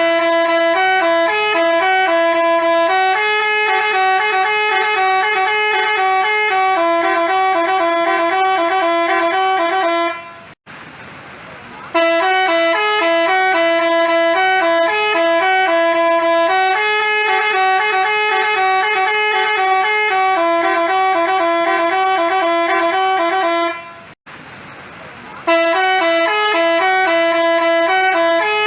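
Telolet basuri multi-tone bus horn playing a repeating tune in loud, stepped notes. The tune breaks off twice for about a second and a half, once about ten seconds in and again about 24 seconds in, then starts again.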